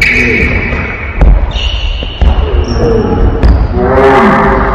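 Basketball bouncing on a hardwood gym floor amid short high sneaker squeaks. A voice shouts near the end.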